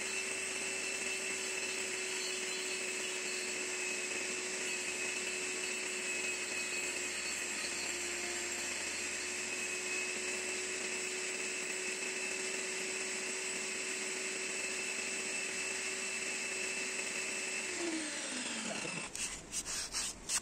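Table saw running at steady speed while its barely raised blade shaves a wooden handle turned by hand against it. About 18 s in the saw is switched off and winds down with a falling whine, followed by a few light clicks.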